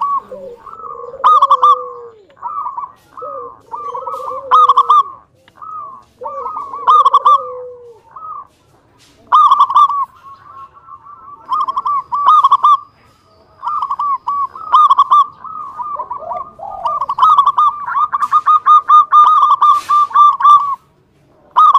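Zebra dove (perkutut) cooing: repeated short phrases of quick staccato coos, with a lower, falling note under the phrases in the first several seconds. Near the end the coos run together into one long rapid string that cuts off suddenly, and one more short phrase follows.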